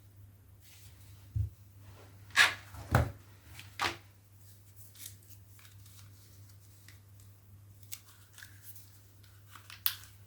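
Packaging being handled during unboxing: a low knock about a second and a half in, then a few short rustles and scrapes over the next couple of seconds, and a sharp click near the end, over a faint steady low hum.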